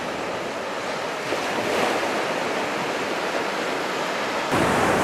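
Ocean surf washing on a beach, with wind buffeting the microphone. About four and a half seconds in, it jumps suddenly to a louder, fuller wash of surf.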